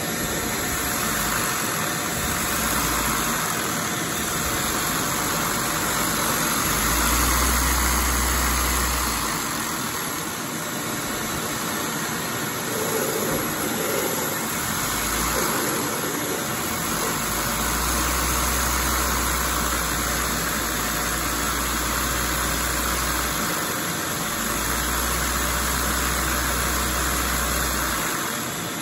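Shop vacuum running steadily, its hose sucking air through a Lego four-cylinder rotary-valve vacuum engine to drive it, with a low rumble that comes and goes several times.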